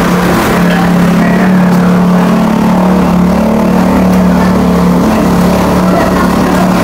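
LCD flex-bonding machine running with a steady, even hum and a low drone underneath.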